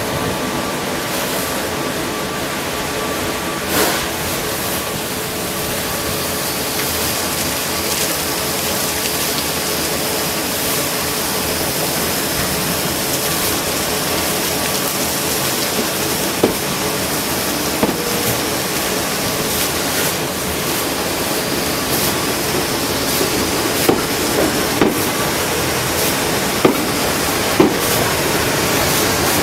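Steady hiss of water spraying from a train washing plant's jets as a commuter train passes through, with a faint steady hum underneath and a few light clicks in the second half.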